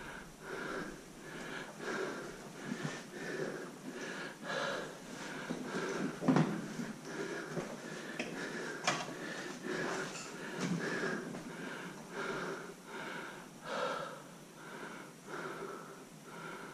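A person panting hard close to the microphone, about two breaths a second, with a sharp knock about six seconds in.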